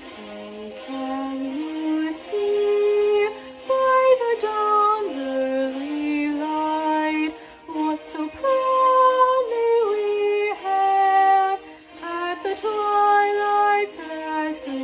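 A girl singing alone: a slow melody of long held notes that step up and down, with short breaths between phrases.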